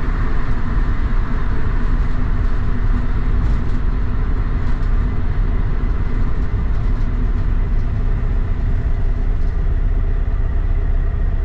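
VW bus's air-cooled flat-four engine pulling the bus along on its dual Weber 48 IDA carburettors, heard from inside the cabin as a steady drone mixed with road noise and light body rattles. The carburettors have just been synchronized.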